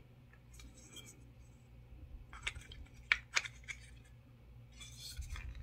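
Plastic model kit parts being handled and fitted, with a few small sharp plastic clicks between about two and three and a half seconds in and a soft rustle near the end.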